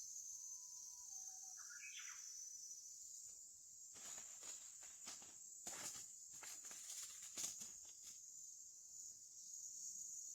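Steady high-pitched chorus of crickets or other autumn insects. A short bird call comes in the first two seconds, and a run of rustling clicks and knocks falls in the middle.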